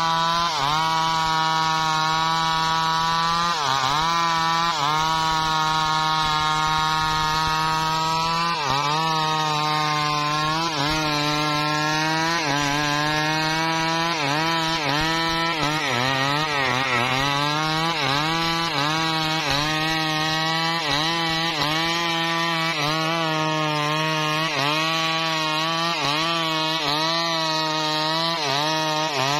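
Two-stroke gasoline chainsaw at full throttle, ripping lengthwise through a large teak log. Its engine note stays steady but dips briefly and recovers every second or two as the chain loads up in the cut.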